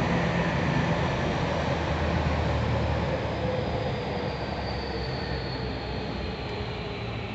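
Tokyu 3000 series electric train running, heard from inside the passenger car: a steady rumble of wheels and running gear with a faint whine slowly falling in pitch, the whole sound growing quieter.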